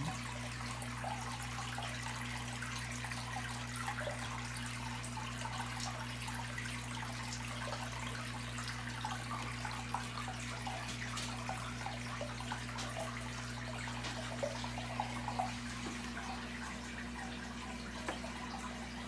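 Aquarium filter running: a steady low hum, with water bubbling and trickling in small, irregular ticks and drips.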